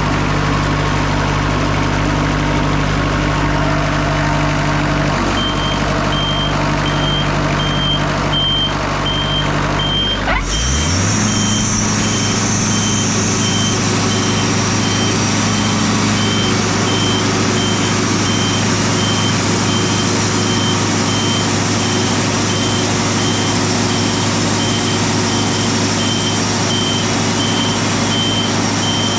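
Wood-Mizer LT40 Super Hydraulic band sawmill's engine idling, then revving up sharply about ten seconds in as the band blade runs at speed, with a steady high hiss of the blade sawing through the timber. A steady, evenly repeated beep sounds through most of it.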